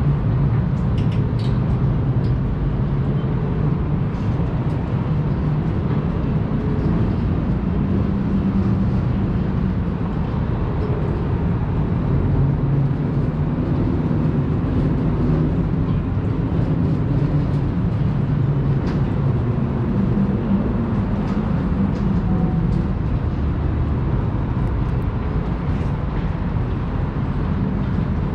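Steady low rumble of wind on the microphone mixed with distant city noise, high above the city.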